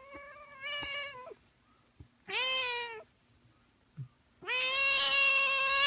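A cat crying in three long meows, each held at a steady pitch; the third, starting about four and a half seconds in, is the loudest and longest.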